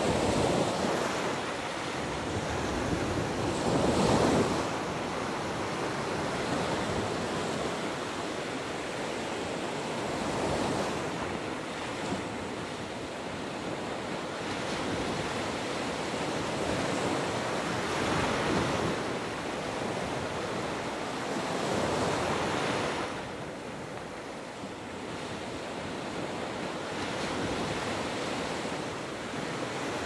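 Small surf breaking and washing up a sandy beach: a steady wash of water, with a wave breaking louder every few seconds. The loudest wave comes about four seconds in.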